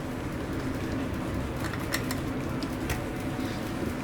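Steady low hiss of room noise with a few faint, light clicks of handling, as test probes and tools are moved about.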